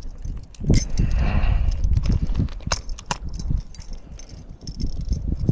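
Handling noise in a kayak: scattered clicks, knocks and light rattles over a low rumble, as the angler reaches for pliers to unhook a bass, with a short rustling burst about a second in.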